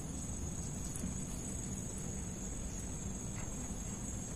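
Insects, such as crickets, keeping up a steady high-pitched drone, with a low rumble underneath.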